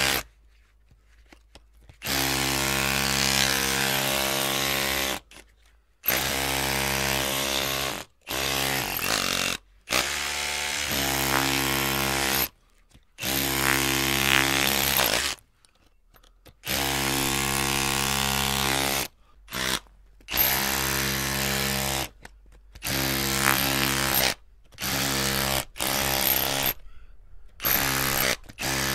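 Electric drill motor switched on and off in a dozen or so bursts, each lasting from a moment to about three seconds, with silence between them. Within each burst the drill runs at a steady high whine.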